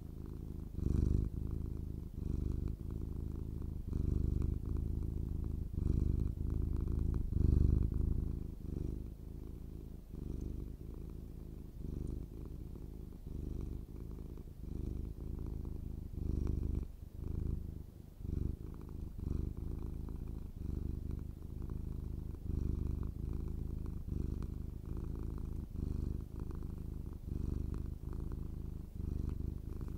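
Domestic cat purring close up, a steady low purr that swells and dips with each breath, about once a second.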